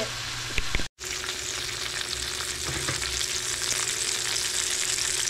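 Pieces of bonito sizzling as they pan-fry in hot avocado oil, a steady sizzle that cuts out briefly about a second in and then carries on.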